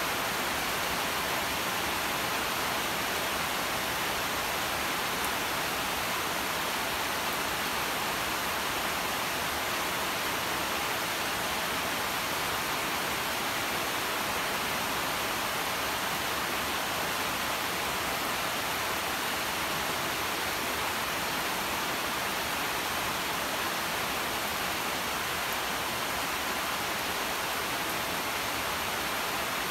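Steady rain: an even hiss with no separate drops, thunder or changes.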